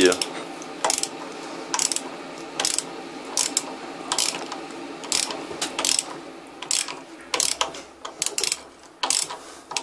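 Ratchet wrench clicking on its return strokes, about one stroke a second, as a stiff nut on the water heater's element flange is worked loose.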